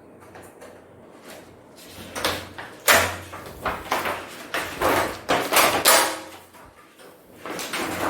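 LED TV parts being handled during disassembly: a string of irregular scrapes, slides and knocks, busiest between about two and six seconds in.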